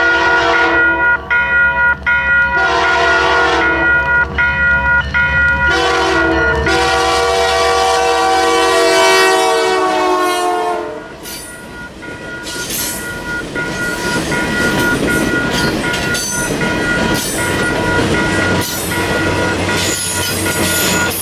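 Canadian Pacific Holiday Train's diesel locomotive horn sounding several blasts as it approaches. The last blast is held long and slides down in pitch as the locomotive passes. After it, the lit cars roll by with a steady rumble and wheel clatter.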